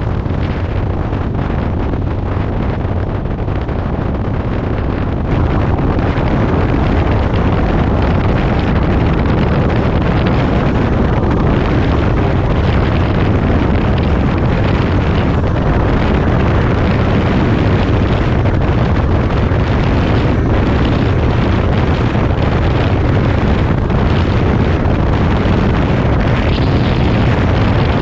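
A road trike's engine running hard at high speed, with heavy wind rushing over the microphone. It gets louder about five seconds in.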